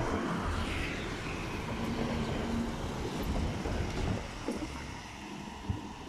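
Cars driving past close by over a rough road and railway level crossing, a rumble of engines and tyres that slowly fades, with one short thump near the end.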